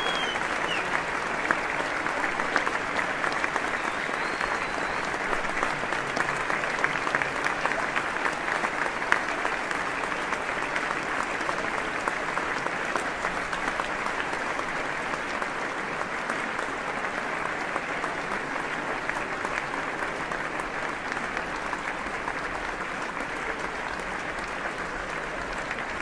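An audience applauding: dense, steady clapping of many hands that gradually gets a little quieter toward the end.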